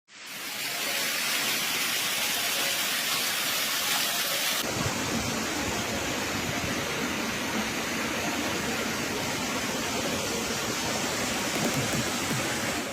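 Steady rushing noise of blizzard wind. It changes abruptly about four and a half seconds in, with less hiss and more low rumble after.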